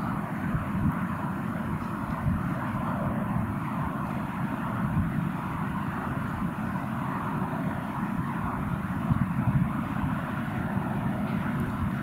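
Steady outdoor background rumble, a continuous noisy hiss and roar with no clear pitch and no bird call.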